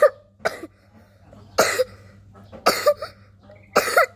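A person coughing repeatedly, short separate coughs roughly once a second.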